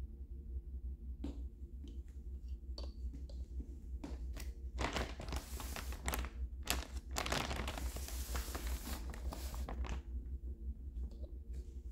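Plastic wrapping of an ABU Little Paws adult diaper package crinkling as it is handled: scattered crackles at first, then dense crinkling through the middle, then a few more near the end, over a steady low hum.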